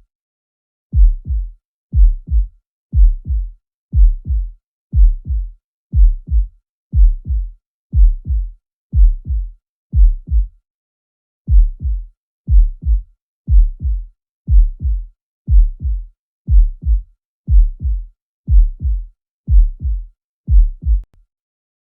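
Human heart sounds recorded through a stethoscope: a steady lub-dub about once a second, the first sound of each pair louder than the second, with a brief longer pause about ten seconds in.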